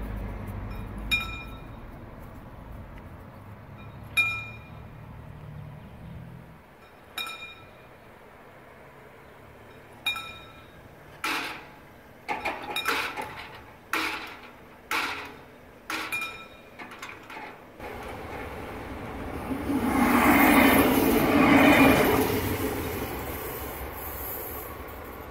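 Level-crossing warning bell (Läutewerk) at a mechanical full-barrier crossing, striking single ringing tones about every three seconds, then a quicker run of louder strikes and clanks. Near the end a broad rushing noise swells and fades, like a vehicle passing.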